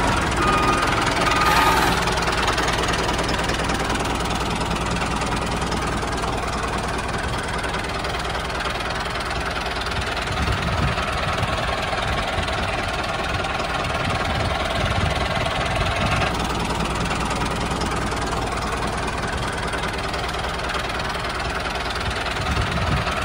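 Tractor engine running steadily, a little louder around ten seconds in.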